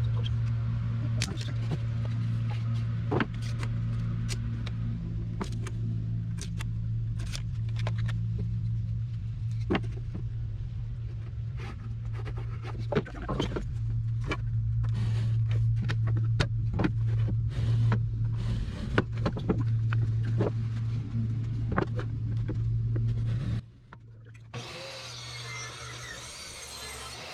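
A motor running with a steady low hum, with many irregular sharp clicks and knocks over it; the hum stops abruptly about 24 seconds in, leaving a quieter hiss.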